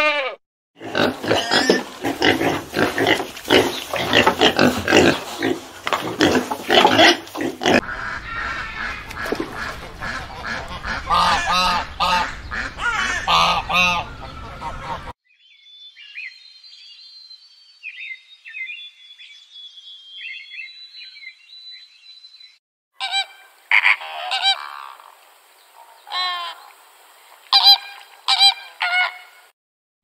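A series of different animal calls, one clip after another: dense, noisy calling for the first half, faint high chirping in the middle, then short, sharp calls near the end.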